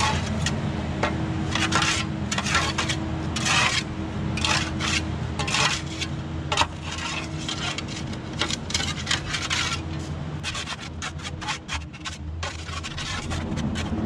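Dirt and rocks being scraped out of a compact track loader's tracks: repeated rough scraping strokes, quicker and shorter from about ten seconds in. The machine's engine idles steadily underneath.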